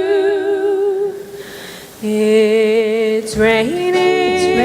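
A young woman singing a show tune solo, holding the word "flu" on a note with vibrato. After a short pause the accompaniment and singing start again, with a bass line coming in near the end.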